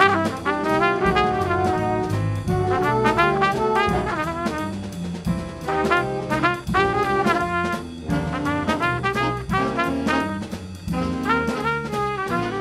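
A school band's brass section, trumpets and trombones, playing a lively jazz-style tune in quick rhythmic phrases.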